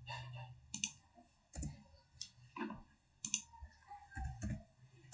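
Scattered single clicks of a computer keyboard and mouse as a number is entered into a table, about one every second.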